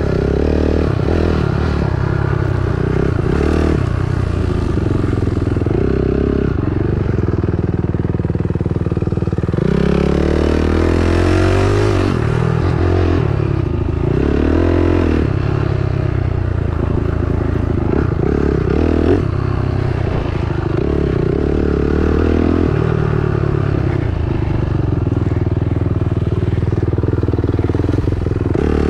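Dirt bike engine running as the bike is ridden on a trail, its pitch rising and falling with the throttle, with a clear climb in revs about ten seconds in.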